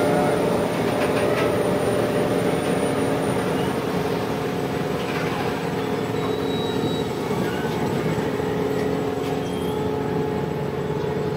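Star Ferry's engine running with a steady drone of several held pitches over a rushing noise of water and wind on the deck.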